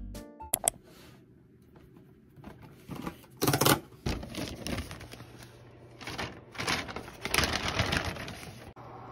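Cardboard hair-dye kit box being handled and opened, and its folded paper instruction leaflet being unfolded, rustling and crinkling in several short bursts. The loudest bursts come about three and a half seconds in and again over the last two seconds.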